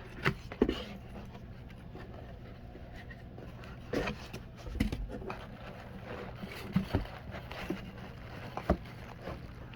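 Hands unpacking a fishing magnet from its box: scattered knocks, clicks and rustles of packaging and metal being handled, over a steady low hum.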